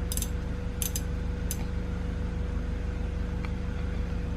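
A few light metallic clinks in the first second and a half, from steel box wrenches being handled in a toolbox drawer, over a steady low hum.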